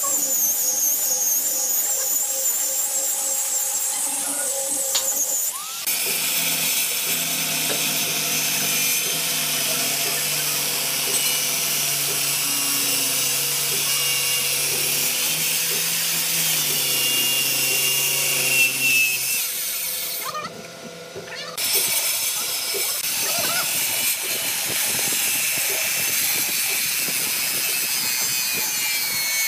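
An angle grinder with a sanding disc runs with a high whine on a hardwood slab for about the first six seconds. Then a Makita circular saw runs steadily and cuts through the thick hardwood, with a brief break about twenty seconds in before it cuts again.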